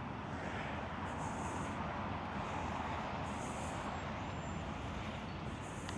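Steady hiss of road traffic going by, swelling slightly in the first few seconds as a vehicle passes.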